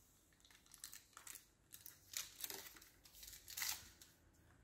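Small paper sugar packet being torn open and crinkled by hand: a string of short, faint rustles and tears, the loudest about three and a half seconds in.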